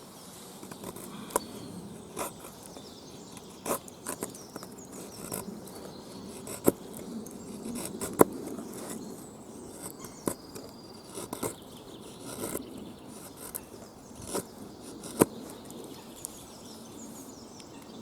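Irregular sharp clicks and knocks, about a dozen, the loudest a little past a third of the way and near the end, over a steady outdoor background with insects buzzing.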